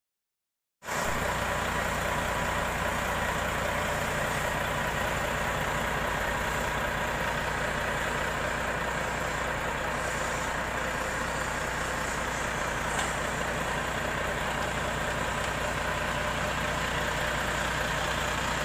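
Heavy diesel truck engine idling steadily, starting about a second in after silence.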